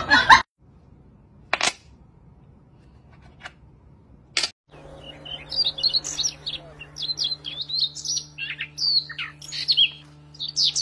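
Small birds chirping: many short, high, quick chirps overlapping, starting about five seconds in. Before that come a few sharp isolated clicks.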